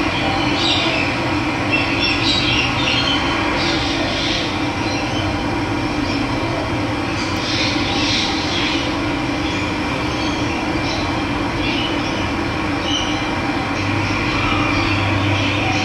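Steady rush of running water, with short bird calls breaking in here and there.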